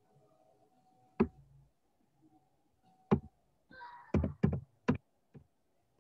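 A handful of sharp knocks at irregular intervals: one about a second in, another about three seconds in, then four in quick succession near the end.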